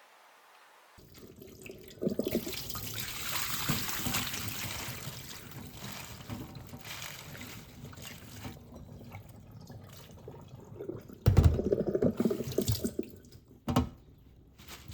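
Water running from a kitchen tap into a sink, starting about a second in. Near the end there is a louder spell of knocks and clatter.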